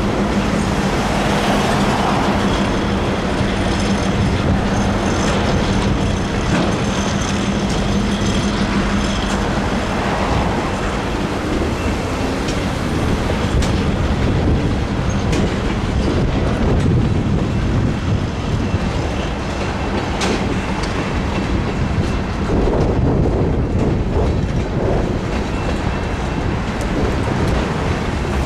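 Freight cars rolling through a grade crossing: a steady rumble with wheels clacking over the rail joints and some wheel squeal, while the crossing's electronic bells ring.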